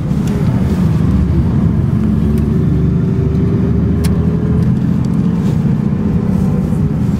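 Steady low rumble of a moving road vehicle's engine and tyres heard from inside the cabin, with a faint steady whine through most of it and a couple of light clicks.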